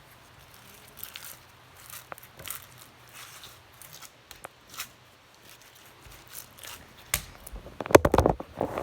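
Slime being squished and pulled in the hands, giving scattered sticky crackles and clicks, with a louder burst of dense crackling near the end.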